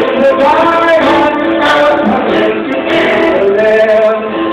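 A man singing a slow melody with long held notes into a microphone, with acoustic guitar accompaniment.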